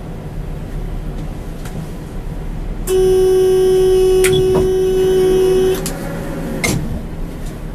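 Low steady hum in a standing tram's driver cab. About three seconds in, a loud steady horn-like tone starts, holds one pitch for about three seconds and cuts off suddenly.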